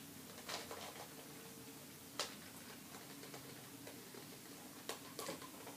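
Plastic QJ 3x3 puzzle cube being turned with the teeth: a few faint, irregular clicks as its layers snap round.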